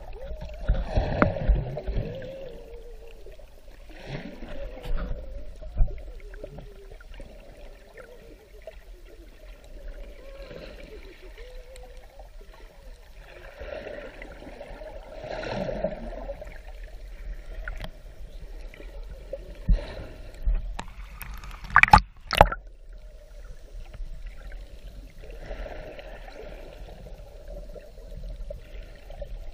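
Muffled underwater water sound: sloshing and gurgling surges as the swimmer's fins churn the water near the surface, heard through an underwater camera. A few sharp knocks sound about three-quarters of the way through.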